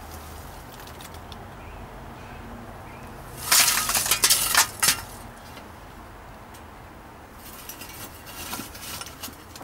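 A metal spade jabbed down into lumps of damp biochar in a galvanized steel bucket, crunching and breaking up the charcoal with clinks of metal: a quick cluster of strikes about three and a half seconds in, then fainter crunching near the end.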